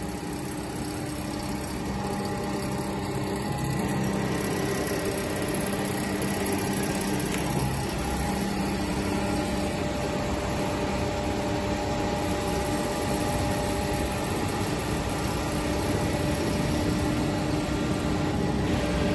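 Kent hydraulic surface grinder running: a steady machine hum with several steady tones, a little louder from about two seconds in.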